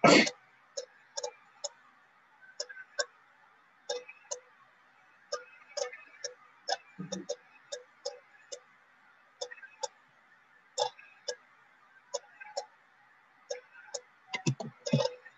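Computer mouse clicking irregularly, often in quick pairs, with a louder click at the very start. A dull knock comes about seven seconds in and another near the end.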